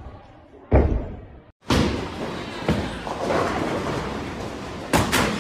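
A heavy thud about a second in, as a tumbler lands on a gymnastics floor. Then a steady din of bowling-alley noise, with two sharp knocks near the end.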